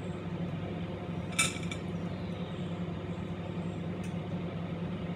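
A steady low hum, with one sharp clink of kitchenware about a second and a half in and a fainter tap near four seconds, as drained food is tipped from a plastic colander into the rice.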